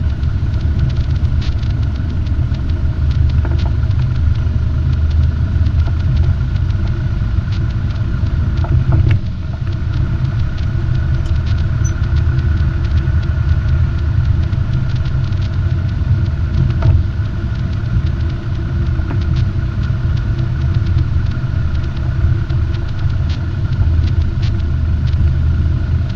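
Robin DR400 light aircraft's piston engine and propeller running at low power, a steady low drone heard inside the cabin as the plane rolls along the taxiway. A couple of faint knocks come through, about a third of the way in and again past halfway.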